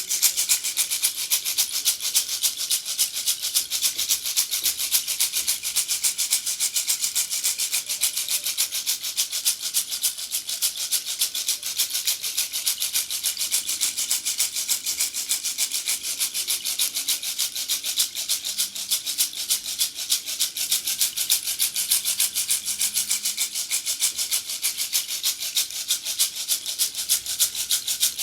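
Rainstick being tipped, its pebbles trickling down inside in a steady, dense, high patter.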